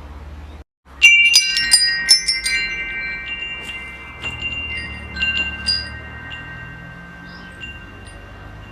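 Wind chimes struck in a quick flurry about a second in, their high tones ringing on and slowly fading, with a few more scattered strikes a little after the middle. A low steady hum runs underneath.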